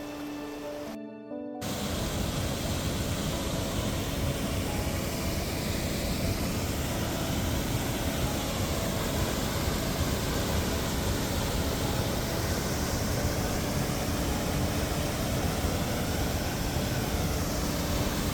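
Loud, steady rush of fast-flowing water, starting abruptly about a second and a half in, with faint background music under it.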